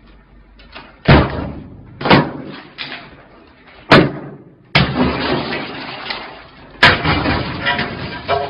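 Five heavy hammer blows smashing shop fittings. The last two are each followed by a couple of seconds of crashing and breaking glass.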